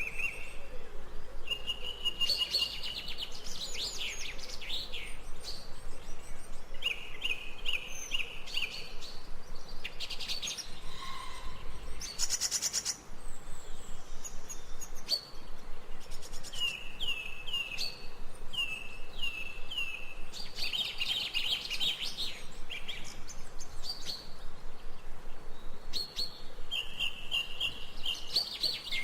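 Several songbirds chirping and singing, with quick series of short down-slurred notes and trills.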